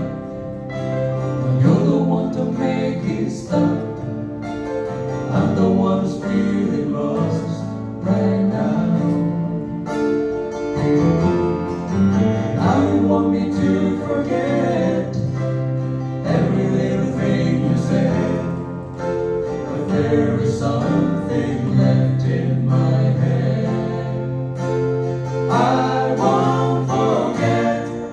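Live band music: acoustic guitars and keyboard playing a soft song, with singing.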